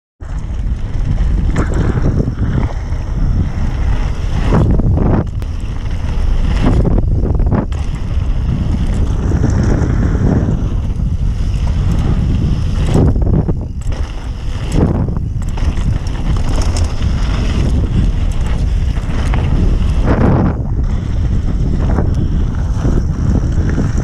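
Wind buffeting the microphone of a mountain bike rider's action camera during a fast descent of a dirt trail, surging and easing. The tyres and bike rumble and rattle over the dirt underneath.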